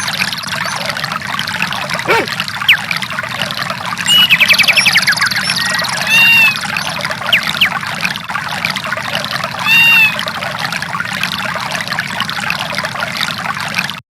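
Samsung SGH-D415 nature-sounds ringtone: a steady rush of running water with chirping bird calls laid over it, the same trills and calls coming back every few seconds as the recording loops. It cuts off abruptly near the end.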